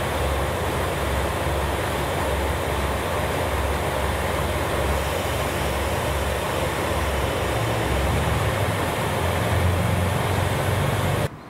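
A KiHa 185 diesel railcar's engine idling, a steady low throbbing rumble under broad mechanical noise, cut off abruptly near the end.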